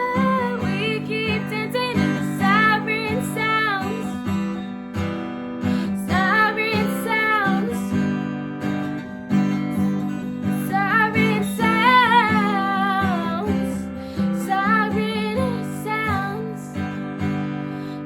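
Strummed acoustic guitar chords under a female voice singing long, wavering vocal runs without clear words, in several phrases with short breaks between them.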